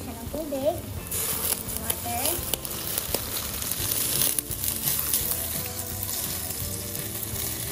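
Water poured from a container into a stainless steel pot of sliced sponge gourd, splashing and pattering onto the vegetables. It starts about a second in and stops near the end.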